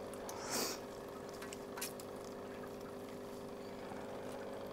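Water splashing and dripping as a dripping clump of floating aquarium plants is lifted out of the tank, with a short splash about half a second in and a few small drips after. A steady low hum runs underneath.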